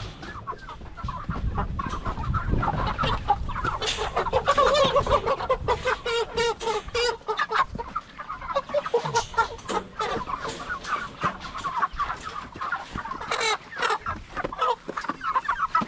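A flock of chickens and roosters clucking and squawking continuously, many overlapping calls, as the birds are caught and handled.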